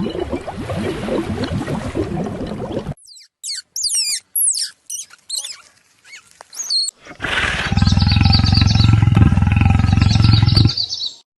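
A run of separate animal calls: first a rough, low, pulsing sound for about three seconds, then a string of short high chirps that sweep up and down, then a loud, low, steady call lasting about three and a half seconds that cuts off near the end.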